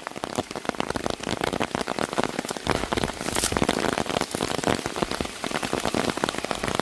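Rain falling steadily, a dense close patter of individual drops striking over an even hiss of rainfall.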